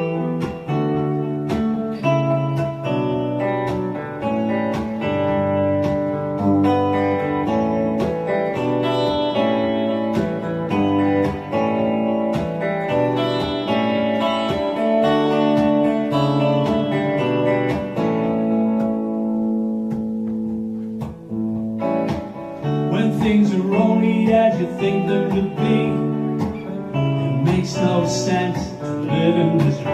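Telecaster-style electric guitar played solo, picked notes ringing on one after another. About 22 seconds in, a man's singing voice comes in over the guitar.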